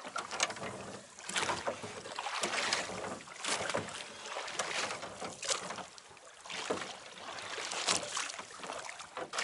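Oars of a metal rowboat working through the water, the blades splashing with each stroke about once a second.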